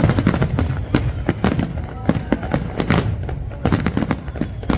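Aerial fireworks in a dense barrage: many shells bursting in rapid, overlapping bangs and crackles, several a second, over a continuous low rumble.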